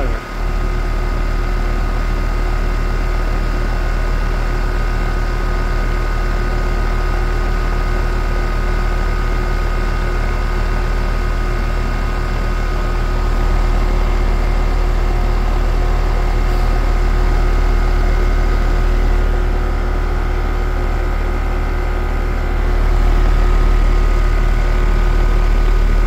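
Outdoor air-conditioner condensing unit running while refrigerant is charged: a steady deep compressor hum with fan noise and several steady tones, growing a little louder about halfway through and again near the end.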